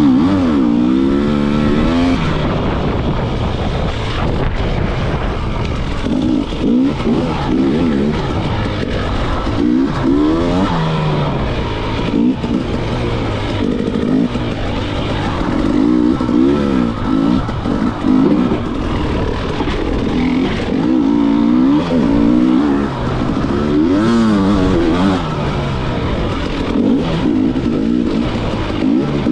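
Enduro dirt bike engine revving up and down over and over while being raced, its pitch climbing and dropping every second or two.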